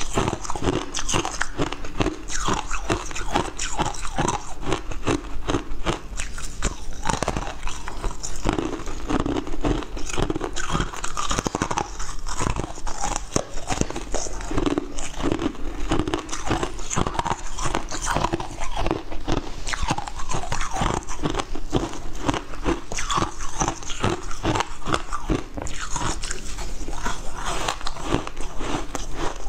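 Frozen flavoured ice being bitten and chewed close to a clip-on microphone: a dense, continuous run of sharp crunches and cracks.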